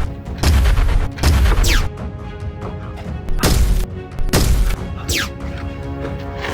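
Dubbed-in action-film gunshot and impact sound effects: about five heavy, bass-laden hits at uneven intervals, a couple followed by a falling whistle-like sweep, over background music.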